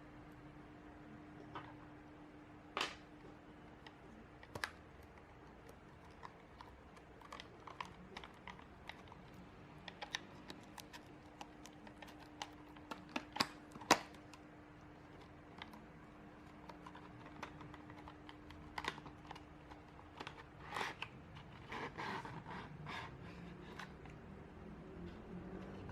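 Sparse, irregular small clicks and taps over a faint steady hum, with a louder click near the start and another about halfway through. The hum stops about twenty seconds in, and a short cluster of taps follows.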